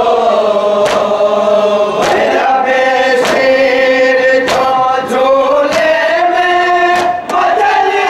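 A group of men chanting a noha (Shia lament) in chorus, in long drawn-out sung lines. Sharp, evenly spaced slaps of matam, hands striking chests, come about once every second and a bit.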